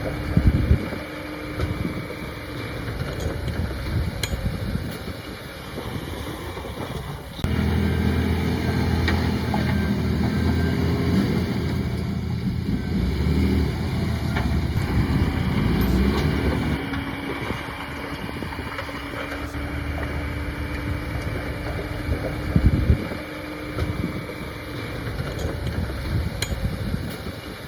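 Heavy diesel earthmoving machinery running. From about seven seconds in, the engine gets much louder for several seconds, then settles back. A couple of loud knocks come, one near the start and one about three quarters of the way through.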